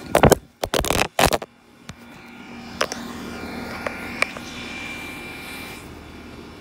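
Several loud thumps and rubbing in quick succession in the first second and a half from a phone being handled and swung, then a steady low hum with a few faint clicks.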